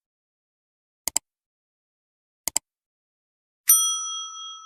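Edited sound effect of double clicks, like a mouse, three times about a second and a half apart, then near the end a single bright bell ding that rings on and fades: the usual subscribe-button and notification-bell cue.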